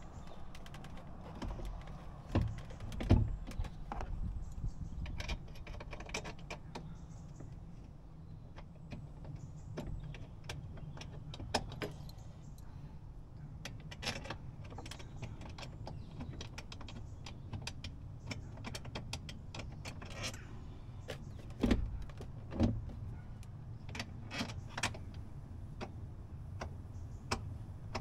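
Scattered clicks and knocks of hand tools and small parts being handled during hands-on car repair work, with a few louder knocks about three seconds in and again a little past twenty seconds, over a steady low hum.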